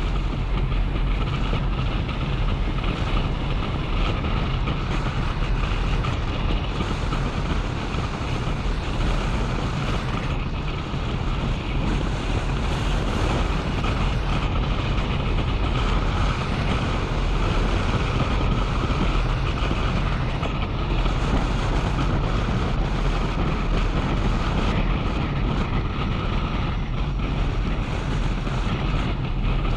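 Steady wind rushing over an action camera's microphone on a moving motorcycle, with the bike's engine and tyre noise running underneath.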